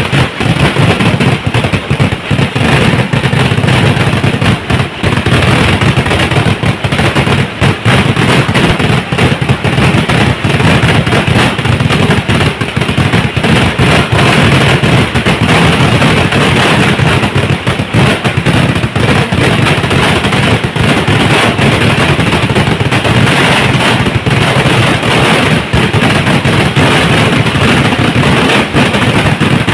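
Kerala vedikettu fireworks barrage: dense, continuous rapid-fire bangs overlapping with no pause.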